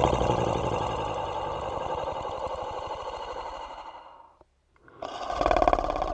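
Monster snoring sound effect: one long, rattling snore breath fades away over about four seconds, then after a short pause the next snore swells up near the end.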